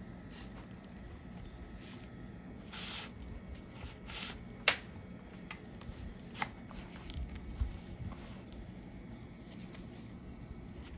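Hand-sewing a shoe welt: thread drawn through the leather welt and insole in two long swishes as the stitches are pulled tight, with a couple of sharp clicks and small handling ticks.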